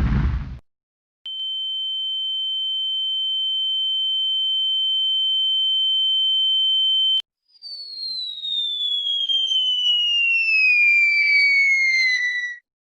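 Meme sound effects in a row. First the tail end of a noisy blast. Then a single steady high electronic tone, like an ear-ringing effect, that grows slightly louder for about six seconds and cuts off suddenly. Then a long whistle falling steadily in pitch for about five seconds, like a falling-bomb whistle.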